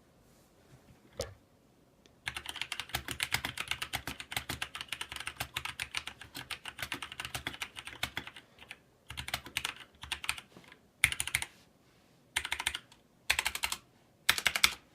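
Typing on a Drevo Gramr 84-key mechanical keyboard with Outemu red linear switches: a fast, continuous run of keystroke clacks from about two seconds in, then five short bursts of key presses toward the end.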